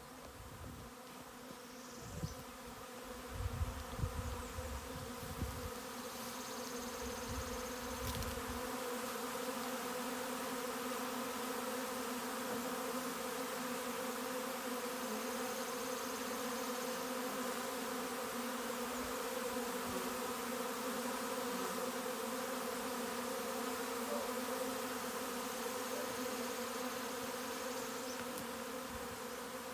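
A swarm of honey bees buzzing: a dense, steady hum of many bees in flight, a little louder from about eight seconds in. A few low thumps and rumbles in the first eight seconds.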